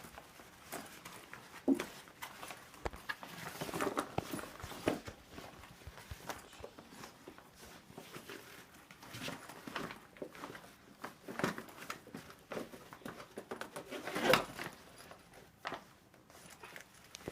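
Irregular rustling, scraping and knocking as a hoverboard is worked into a fabric carry bag, with a louder knock about 14 seconds in.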